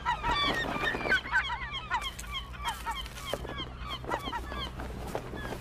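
A flock of gulls calling at once, many short overlapping cries, loudest in the first couple of seconds, over a low steady hum.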